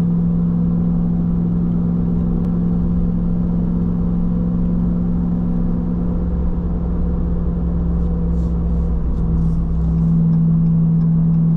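Ram TRX pickup's 6.2-litre supercharged V8 droning at a steady cruise in sport mode, holding the same revs, with road rumble underneath. The drone grows a little louder about ten seconds in.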